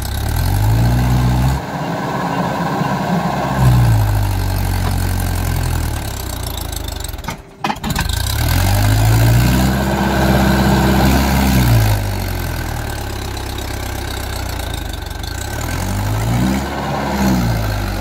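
Mahindra tractor's diesel engine working hard under load, pulling a loaded trailer up a dirt slope. The revs rise and fall several times, with a brief break in the sound about halfway.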